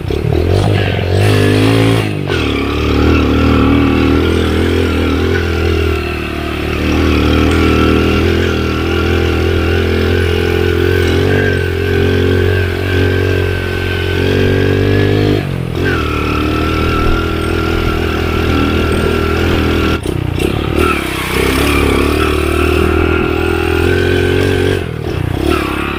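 Underbone motorcycle's small single-cylinder engine running under load on a rocky climb, the revs dropping and picking up again a few times.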